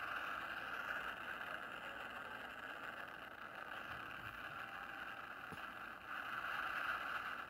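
A steady rushing noise with no distinct strikes or voices, growing louder about six seconds in.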